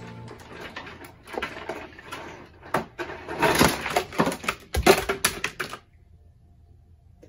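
Plastic toy army men clattering and rattling as a hand rummages among them, a run of clicks and rustles that grows louder midway and stops suddenly about six seconds in.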